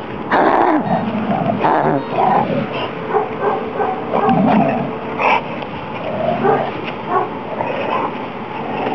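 Dog making repeated short barks and yips while playing tug-of-war with a car tyre.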